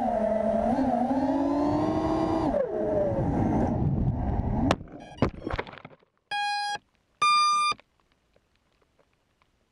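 FPV racing quadcopter's brushless motors whining, pitch dropping and rising with throttle, then sharp knocks about five seconds in as it crashes and the motors wind down to silence. Two short electronic beeps follow, the second higher.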